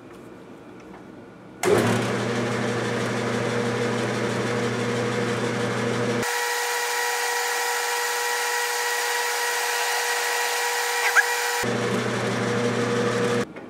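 Enco metal lathe running with its spindle turning the bar while a center drill in the tailstock chuck is fed into the end. The machine sound is steady, with several constant tones. It starts about two seconds in and stops abruptly shortly before the end.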